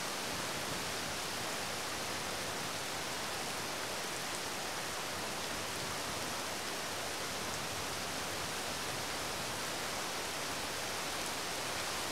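Steady rain falling, an even hiss with no change in level.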